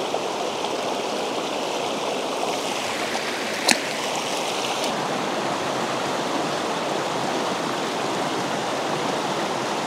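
River water rushing steadily over rocks, a continuous even hiss. A single sharp click about a third of the way in.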